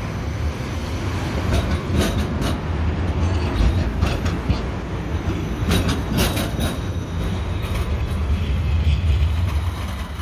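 A tram running past at close range: a steady low rumble of wheels on the rails, with two quick groups of sharp clacks, the first about two seconds in and the second around six seconds, as the wheels cross rail joints.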